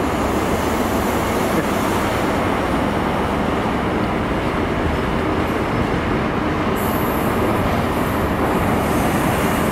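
A GWR High Speed Train departing past the platform, its Mark 3 coaches rumbling steadily over the rails. The rear Class 43 diesel power car draws level near the end.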